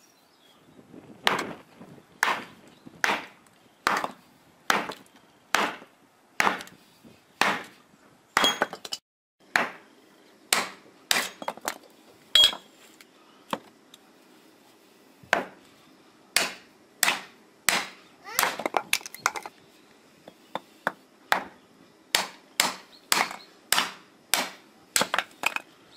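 Hatchets chopping and splitting small logs: a steady series of sharp woody chops, roughly one a second, with a short break about nine seconds in.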